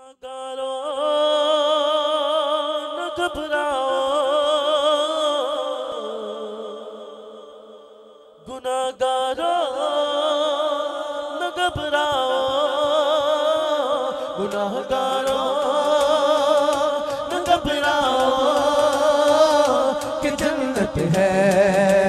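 Male voices singing a naat, the lead drawing out long melismatic phrases with heavy vibrato and a second singer beneath. The first phrase fades away about eight seconds in, and a new phrase starts just after.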